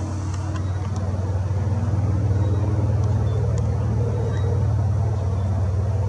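Low steady motor rumble that swells over the first two seconds and then holds, with a few faint high ticks above it.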